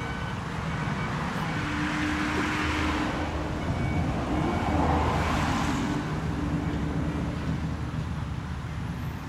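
Road traffic: vehicles passing by, two swelling rushes about two and a half and five seconds in, over a steady low engine rumble.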